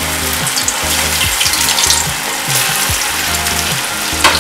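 Potato-and-kheel cutlets just put into hot oil in a kadhai, deep-frying with steady, vigorous sizzling from the fresh batch. A sharp click comes near the end.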